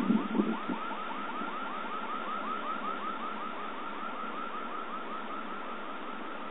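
Steady rushing storm noise with a rapid, even chirping over it, about six short chirps a second, that fades out about five seconds in. A few low thumps in the first second.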